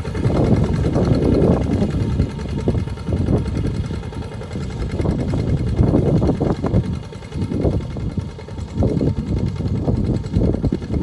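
Diesel engine of a two-wheel walking tractor running under load while plowing a wet rice field. Its sound swells and dips unevenly.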